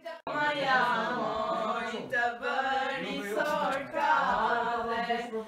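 Girls singing an Albanian folk song together, unaccompanied by any instrument, their voices moving through a slow repeated melody line. The singing breaks off for a moment right at the start, then runs on.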